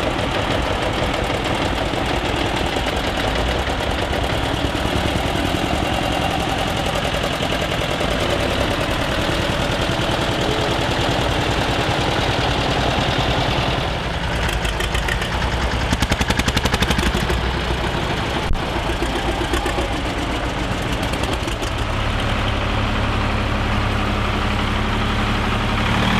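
Engines of several vintage farm tractors running as they drive slowly past one after another. About two-thirds through, one engine gives a rapid, regular knocking beat, and near the end a deeper, steady engine hum takes over.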